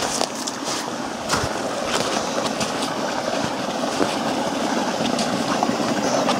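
Meltwater stream flowing and rushing steadily, with small irregular splashes and clicks.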